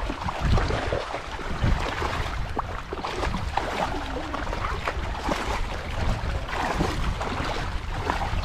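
Wind rumbling on the microphone over water sloshing and splashing.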